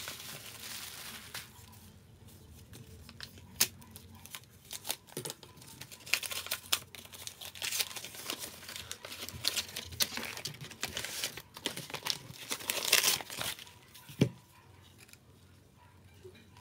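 Pink plastic bubble wrap and paper wrapping crinkling and rustling as a package is unwrapped by hand, with irregular crackles that come thickest in the middle of the stretch.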